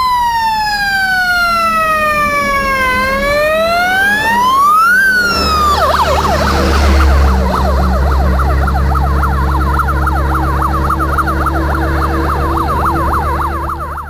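Fire engine's electronic siren: one slow wail falling and rising again, then switching about six seconds in to a fast up-and-down yelp. A steady low engine drone runs under the yelp.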